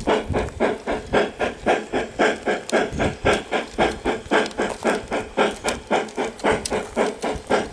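Sound system of a Bachmann K27 large-scale model steam locomotive playing steady steam chuffs, about four a second, with hiss between the beats, as the model runs along its track.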